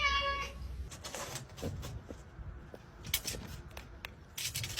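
A cat meowing, one held note that ends about half a second in, followed by faint scattered clicks.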